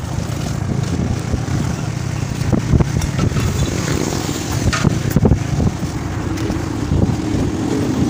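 Riding on a motorcycle through street traffic: a steady, loud rumble of engine, road and wind noise on the phone's microphone. A few sharp knocks come a few seconds in.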